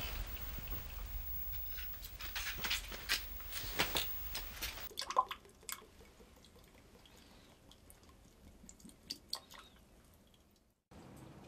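Water dripping and a drinking glass handled at a bathroom sink: sharp drips and clicks over a low rumble at first, dropping suddenly about five seconds in to a quieter stretch of scattered drips, with a brief cut-out near the end.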